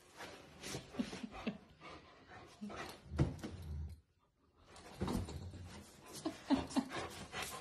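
Rottweilers making short, irregular vocal noises, mixed with thumps and scuffles as they move on a padded dog bed.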